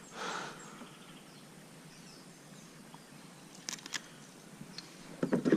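Quiet outdoor background with a short soft noise burst just after the start, then a few small clicks and knocks near the end: fish and tackle being handled.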